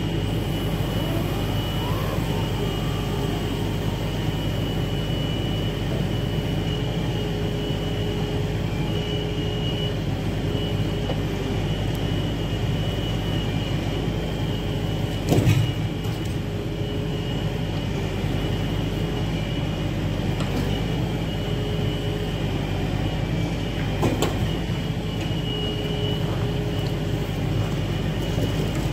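Log truck's diesel engine running steadily to power its knuckleboom log loader, with a hydraulic whine that comes and goes as the crane swings and grips. Two heavy knocks of logs, one about halfway through and a smaller one some eight seconds later.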